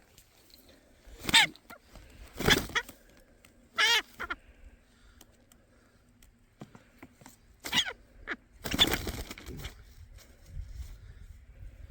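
Rooster pheasant squawking several times as it is caught and handled, with a longer scuffle near the end.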